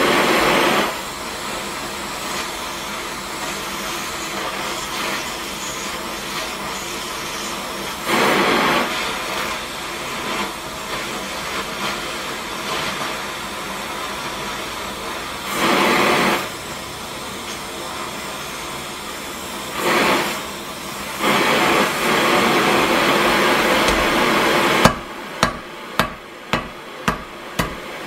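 A gas torch flame hissing steadily while it heats a steel bar held in tongs, swelling louder several times. Near the end a hand hammer strikes the red-hot bar on an anvil, about five blows a little under two a second.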